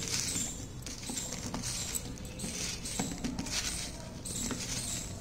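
Okra pods being mixed by hand on a ceramic plate: an irregular soft rustling of pods rubbing together, with a few light clicks as they knock against the plate.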